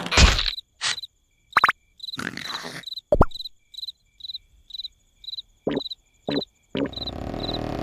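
Crickets chirping steadily, about two chirps a second. Over them come a few short squeaks, whistles and a swishing noise in the first three seconds and a few quick short sounds near the end, and a steady hiss sets in just before the end.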